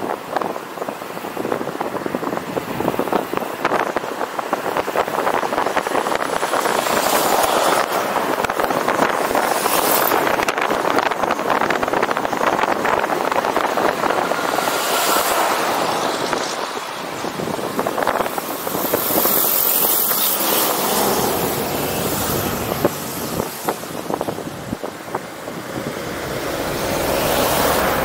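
Continuous road and wind noise of a moving vehicle, swelling and fading, with several gusty surges of wind.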